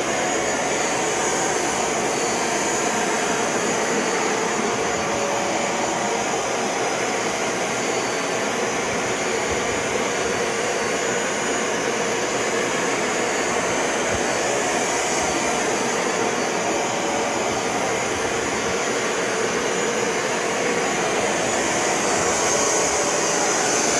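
Bissell ProHeat 2X Revolution Pet Pro upright carpet cleaner running steadily, a rush of suction with a high whine on top, as it pulls water back up out of the carpet.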